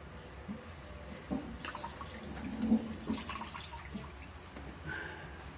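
Water dripping and splashing among a few short knocks and rustles as defrost meltwater in a refrigerator's bottom freezer is wiped up with a wet rag; the busiest stretch is in the middle, with one sharper knock.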